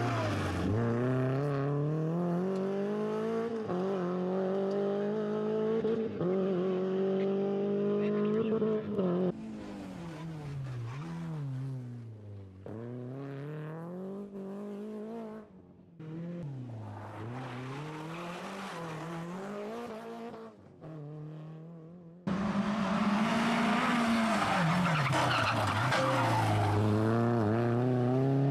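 Rally-prepared Renault Clio driven flat out, its engine revving up and dropping back at each gear change, again and again. It is fainter in the middle and loud near the end as it comes close, with a rush of tyre and gravel noise.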